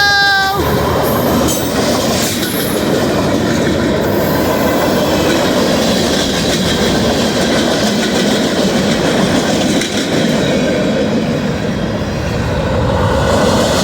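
A BNSF freight train's cars rolling past, steel wheels running and clattering over the rails with a steady, loud noise.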